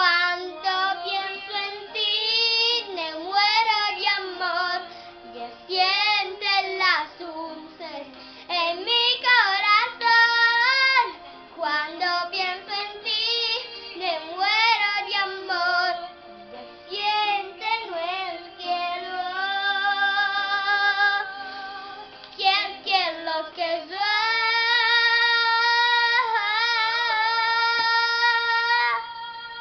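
A young girl singing solo with no accompaniment, in phrases with wavering vibrato on the held notes, ending on one long sustained note a few seconds before the end.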